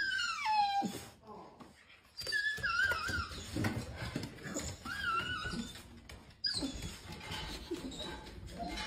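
Australian cattle dog whining in high, wavering cries as a morning greeting. A falling whine comes at the start, then warbling whines about two and a half and five seconds in, and another near six and a half seconds.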